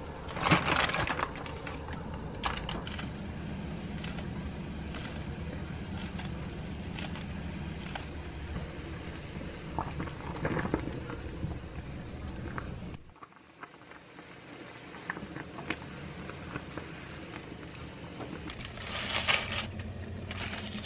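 A pot of fish-cake soup boiling on an electric stove, with steady crackling bubbles and a few knocks of a plastic ladle stirring it about ten seconds in. After a sudden cut, a dried laver (gim) sheet crinkles as it is handled near the end.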